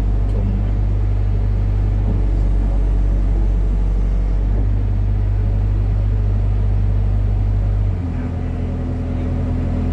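Hitachi excavator's diesel engine running steadily. About eight seconds in its note shifts and it gets slightly quieter.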